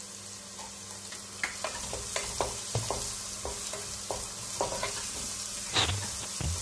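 Chopped onion and spring onion frying in oil in a non-stick pot, with a steady sizzle. A wooden spatula starts stirring about a second and a half in, tapping and scraping against the pan in short strokes.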